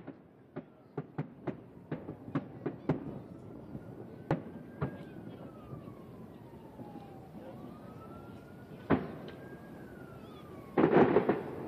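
Distant fireworks going off: a quick string of sharp bangs in the first three seconds, then a few scattered ones. Under them a siren wails slowly up and down twice. A louder rush of noise comes near the end.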